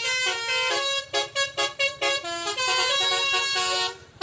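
Indonesian "telolet" multi-tone bus horn playing a tune: held notes, then a quick run of short choppy notes about a second in, then longer notes stepping in pitch.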